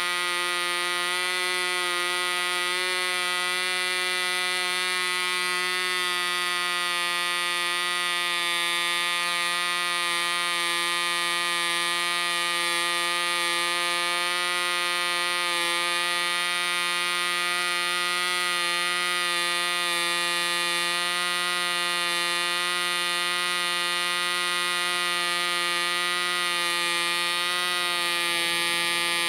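SAM 35 special-edition 0.5 cc two-stroke model diesel engine running steadily at about 10,000 rpm, a high, even buzz that holds one pitch. The brand-new engine is on its first run, with its mixture backed off slightly rich.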